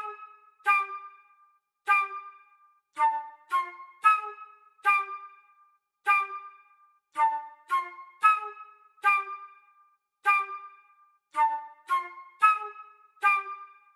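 Comedy sound-effect music: short staccato notes with a sharp start and quick fade, played in little repeating phrases of two to four notes with short pauses between them.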